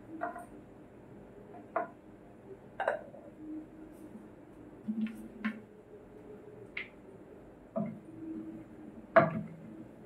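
White decorative stones clinking and knocking against one another as they are picked up and handled, about eight sharp knocks at irregular intervals, the loudest near the end.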